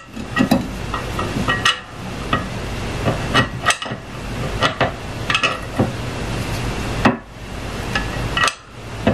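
Irregular clicks and knocks of a resin vat being lined up and fastened onto an Anycubic Photon M7 resin 3D printer, over a steady low hum.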